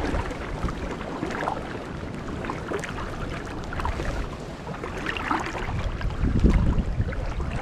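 Rushing river water and wind buffeting the microphone, a steady noisy rumble with scattered small splashes and knocks.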